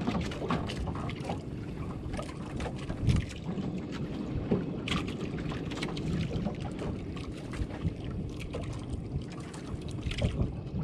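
Wind on the microphone and sea water lapping against a small outrigger boat, with scattered light clicks and taps.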